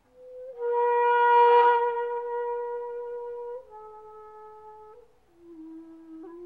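Solo breathy flute playing a slow line of long held notes. The first note swells up loud and airy, then the melody steps down to lower notes about halfway through and again near the end.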